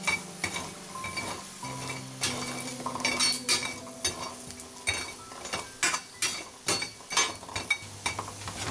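Chestnuts being stirred with a metal utensil in a stainless steel pan while they roast: the nuts clatter and knock against each other and the metal in quick, irregular strokes, with scraping along the pan's bottom.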